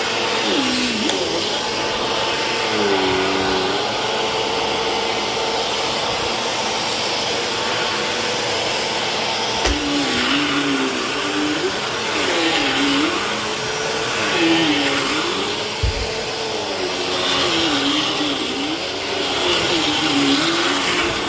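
Vacuum cleaner running steadily, its motor pitch wavering up and down about once a second, with two brief knocks.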